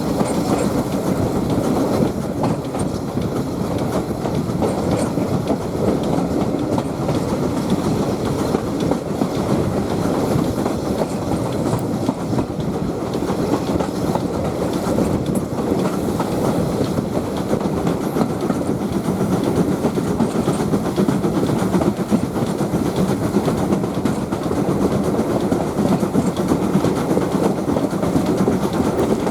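Heritage railway passenger train running along the line, with the steady noise of wheels on the rails.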